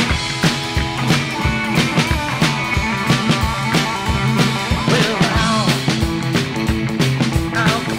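Rockabilly band playing an up-tempo number: electric guitar over upright bass and drums keeping a steady beat.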